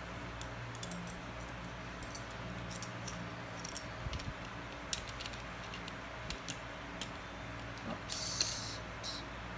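Small plastic Lego bricks clicking and rattling as they are handled and pressed into a brick-built safe mechanism, in scattered light clicks with a brief scrape near the end, over a steady low hum.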